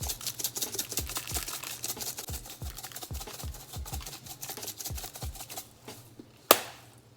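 Seasoning shaker rattling rapidly as lemon pepper is shaken over raw ribs, over background music with a deep thumping beat. The shaking stops about five and a half seconds in, and a single sharp click follows about a second later.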